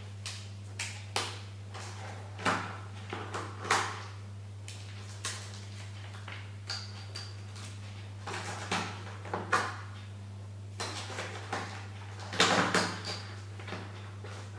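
Irregular clicks, rattles and knocks from hands working the cables and plastic spiral cable wrap at an electric scooter's handlebar stem, with a cluster of louder knocks near the end, over a steady low hum.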